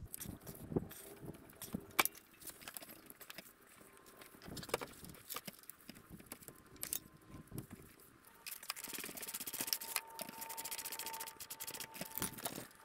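Light metallic clinks and taps of hand tools and parts being handled at a quad's front hub and steering joints, with a quick run of rapid, even clicking near the end.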